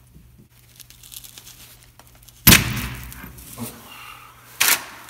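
A torque wrench and socket on a rear wheel hub nut, pulled hard toward 175 foot-pounds: one sharp metallic bang about two and a half seconds in that rings on for about a second, then a shorter sharp clank near the end.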